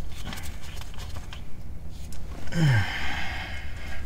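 A man's short sigh that drops in pitch, about two and a half seconds in, over a low steady hum, with a few light clicks before it.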